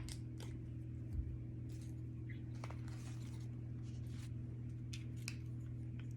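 Steady low electrical hum with faint, scattered small clicks and rustles, like hands handling dried herbs.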